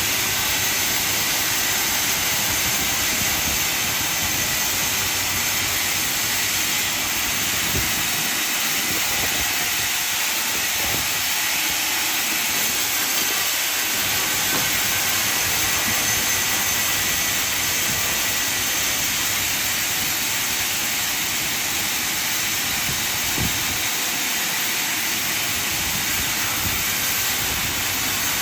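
Band sawmill running, its blade cutting through timber with a steady high hiss.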